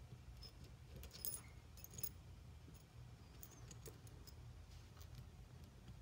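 Faint small metallic clicks and clinks as a steel circlip is handled and worked into the bore of a motorcycle's rear brake master cylinder, the sharpest about a second in, over a low steady hum.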